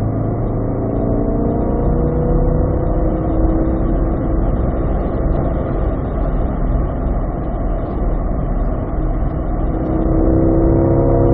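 Car engine accelerating hard in fifth gear on a race track, its note rising in pitch over the first few seconds. Under it is steady wind and tyre noise at around 90 mph, heard from inside the cabin. The engine note comes up again near the end.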